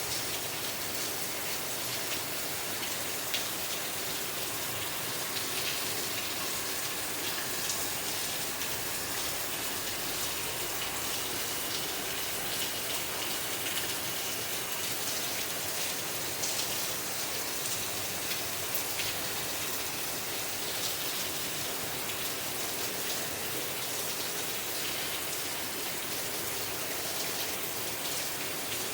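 Steady rain falling and pattering on surfaces, an even hiss with scattered individual drop ticks.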